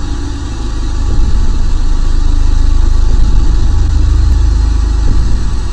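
Intro sound effect of TV static: a loud, deep rumble under an even hiss, growing a little louder about a second in.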